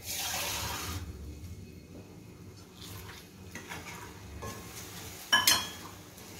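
Water poured into a hot steel pan of potato and tomato masala, a hissing sizzle over the first second, then a steel ladle stirring and scraping the pan. A sharp metal clink against the pan a little after five seconds.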